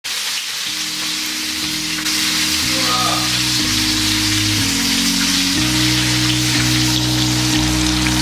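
Rabbit pieces sizzling steadily as they brown in an enamelled cast-iron casserole. Background music with low held notes that change about once a second runs under it.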